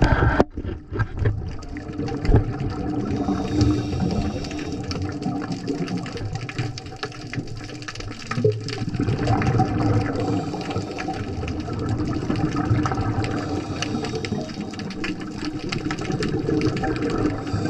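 Underwater sound picked up by a diving camera: a steady rush of water with dense, fine crackling clicks.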